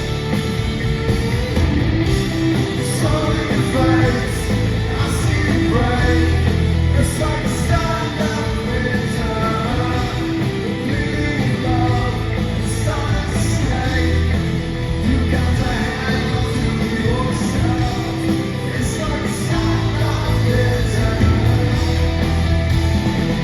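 Rock band playing at full volume, with distorted electric guitars over bass and drums and a voice singing.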